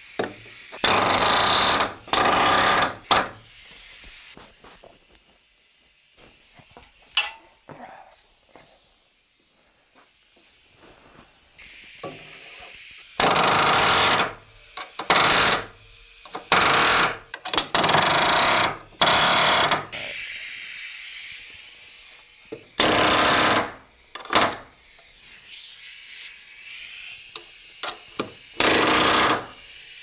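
Pneumatic palm nailer hammering nails into wooden ceiling joists to fasten electrical boxes. It runs in about ten rapid-fire bursts of half a second to a second each, in clusters with pauses between.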